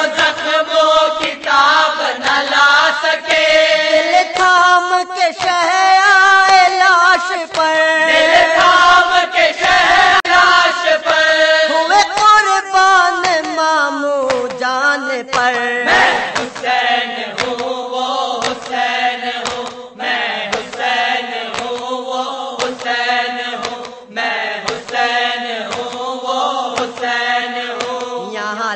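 A marsiya, a Muharram elegy in Urdu, chanted by a single voice in long, wavering held notes. About halfway through the melody drops lower, and a steady beat of about one stroke a second runs under it.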